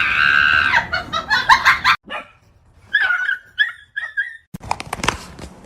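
A dog's high whining, then several short yips and whimpers, with a few knocks near the end.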